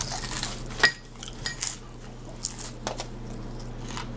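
Crunching of a baked hard-shell taco being bitten and chewed, with one sharp ringing clink just under a second in and a few small crackles after it.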